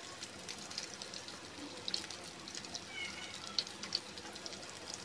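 Floured frog sizzling in hot cooking oil in a frying pan, with scattered crackling pops of spattering oil. A faint short high chirp about three seconds in.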